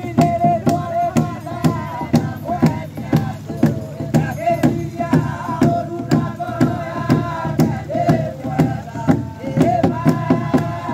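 A congregation singing a hymn together over a steady, sharp beat.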